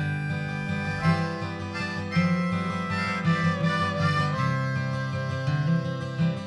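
Background music: a melody of held notes over a steady accompaniment.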